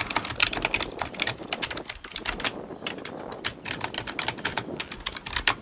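Rapid, irregular clicking and tapping, many sharp clicks a second, stopping suddenly near the end.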